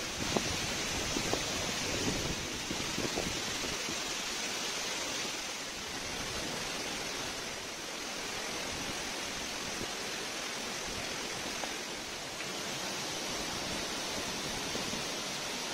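Steady rushing of a small waterfall on a mountain stream, with a few light knocks in the first few seconds.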